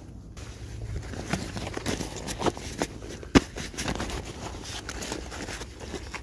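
Rustling and clicking of military webbing and its plastic buckles being handled close to the microphone, with one sharp knock about three and a half seconds in.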